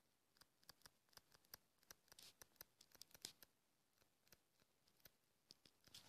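Faint, irregular ticks and scratches of a stylus writing by hand on a tablet screen.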